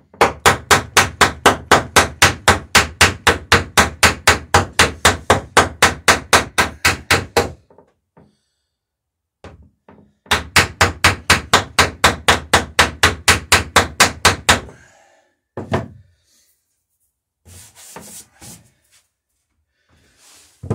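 A hammer peening a rivet through the lapped planks of a wooden dory, with a backing block held against the rivet, struck in quick even blows at about four a second. There are two runs, the first about seven and a half seconds long and the second about four, followed by a few lighter knocks and a brief rub.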